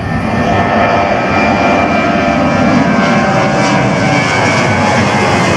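Boeing 737-800 jet engines at climb thrust as the airliner passes overhead just after takeoff: loud, steady jet noise with a whine of fan tones, swelling in the first second and then holding.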